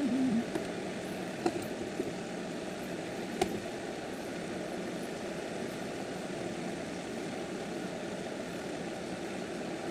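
Steady low droning background noise, with a few short clicks about one and a half, two, and three and a half seconds in.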